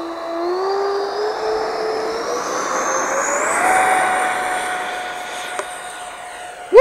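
Twin 64 mm twelve-blade electric ducted fans of a FlyFans MiG-25 RC jet spooling up for take-off: a whine that climbs in pitch in steps over the first four seconds, then holds steady and slowly fades as the jet moves away.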